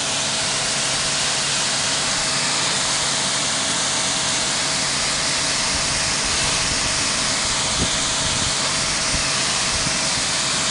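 Pressure washer running steadily: the hard hiss of its water jet spraying onto grass over the steady hum of its pump motor.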